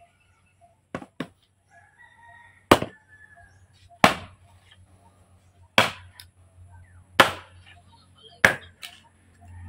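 Machete chopping and splitting firewood: about five sharp, loud strikes, one every second and a half or so, with a couple of lighter taps near the start and end. A rooster crows faintly in the background.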